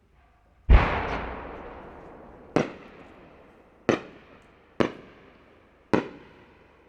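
Aerial firework shells bursting overhead: a big boom about a second in with a long rolling echo, then four sharper bangs over the next few seconds, each trailing off in reverberation.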